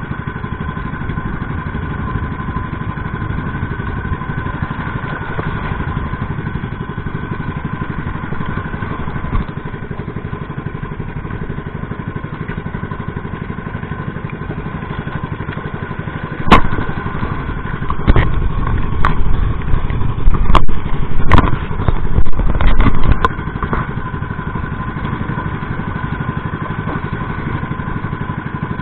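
Small engine of a motorized outrigger boat running steadily at cruising speed, a droning note with a steady whine. From a little past the middle, for about seven seconds, several loud knocks and bangs as the hull slaps through the chop.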